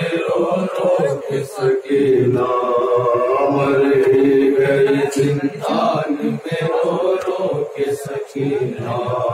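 A group of men chanting a noha, a Shia mourning lament for Sakina, in long held, wavering lines of unaccompanied voice.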